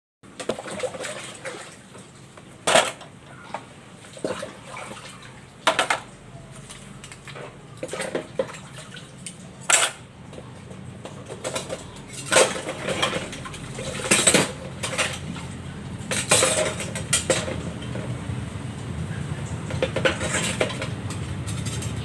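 Dishes and cutlery clinking and clattering as they are washed and handled by hand: sharp knocks every second or two over a steady background.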